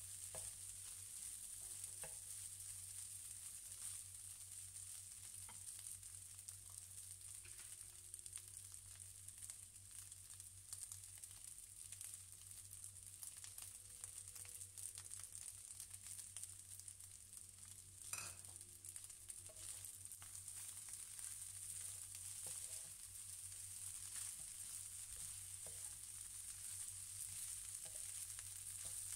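Fried rice sizzling in a ceramic-coated frying pan with a steady high hiss, while a wooden spatula stirs and scrapes through it with scattered light taps against the pan. One louder knock comes about 18 seconds in.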